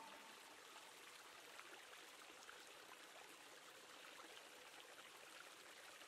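Near silence: a faint, even hiss.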